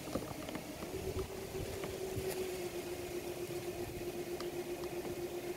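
A motor's steady hum on one unchanging pitch, starting about a second in, over a low rumbling background.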